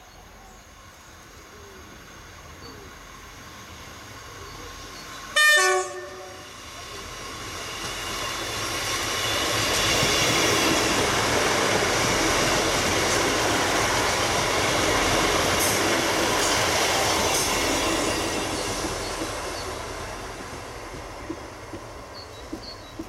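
Northern Class 158 diesel multiple unit approaching and passing. It gives one short horn blast about five seconds in, the loudest sound here, then its running noise builds, stays loud while it goes by, and fades away.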